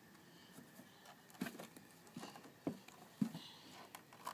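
Faint, scattered soft taps and bumps of a toddler's hands and feet against the hollow plastic steps of a play slide as he climbs, five or so from about a second and a half in.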